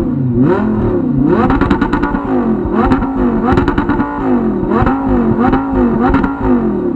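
Turbocharged car engine blipped again and again, about ten quick revs, each rising and dropping away. A chattering turbo flutter sounds as the throttle snaps shut after each one.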